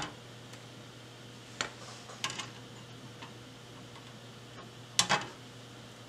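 Xcelite flush cutters snipping resistor leads on a circuit board: sharp clicks about a second and a half in, a pair just after two seconds, a faint one near three seconds, and a loud double snip about five seconds in.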